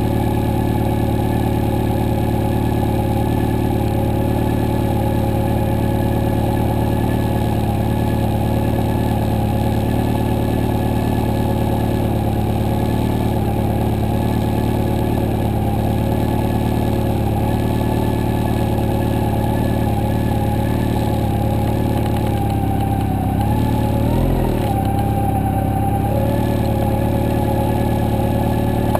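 Motorcycle engine running steadily at low revs, with one brief rise and fall in revs a few seconds before the end.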